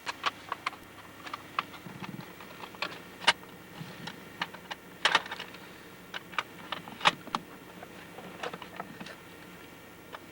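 Irregular sharp clicks and taps, some twenty of them unevenly spaced, with a small cluster about five seconds in, over a faint steady hiss.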